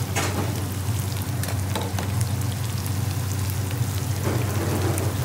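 Sliced onions sizzling as they fry in oil in a frying pan, stirred with a metal spoon that scrapes and taps against the pan now and then. A steady low hum runs underneath.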